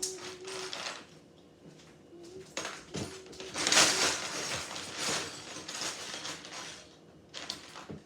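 Plastic Lego bricks clattering as hands rummage through a box of pieces, in several short bursts, the loudest about four seconds in.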